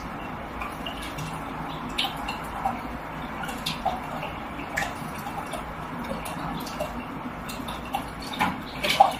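Small splashes and drips of water in an open fish tank as a cat reaches into the water after the fish, coming as scattered short splashes over a steady hiss. The largest splashes come near the end.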